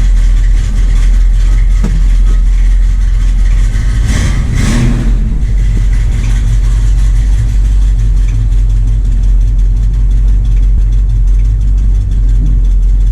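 1966 Mustang's factory V8 running just after a cold start, with a steady low rumble and a brief surge about four seconds in.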